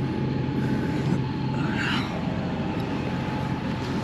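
Tractor engine running steadily while pulling a corn planter across the field, a low even drone with a constant higher whine over it. A brief higher-pitched sound comes about two seconds in.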